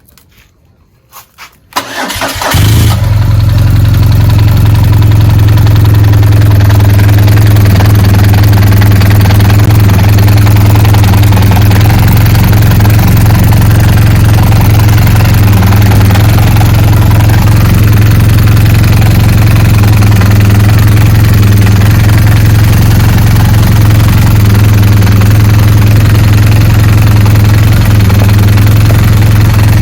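BMW R1200GS flat-twin boxer engine: a few faint clicks, a brief starter crank about two seconds in, then the engine catches and idles loudly and steadily. The idle carries the gearbox noise that the owner is diagnosing.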